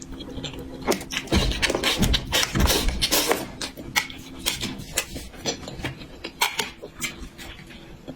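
Close-miked eating sounds: chewing with wet mouth clicks and smacks, busiest and loudest between about one and a half and three and a half seconds in.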